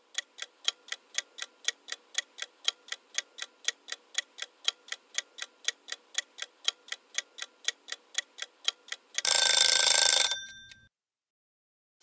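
Countdown clock-ticking sound effect, about four even ticks a second for roughly nine seconds, ending in a short loud ring that marks time up.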